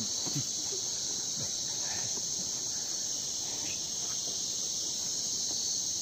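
Steady high-pitched insect chorus, a continuous shrill hiss that holds without a break.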